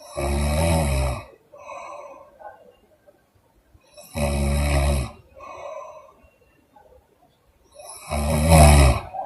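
A sleeping woman snoring: three loud snores about four seconds apart, each followed by a softer breath.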